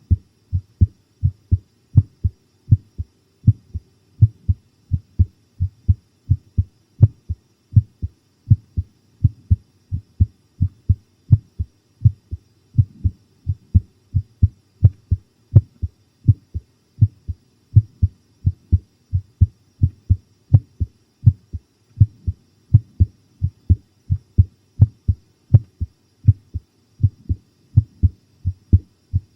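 A person's heartbeat, recorded: a steady lub-dub, each beat a strong low thump followed by a softer one, a little faster than one beat a second. It is a pounding heartbeat, quickened by fright.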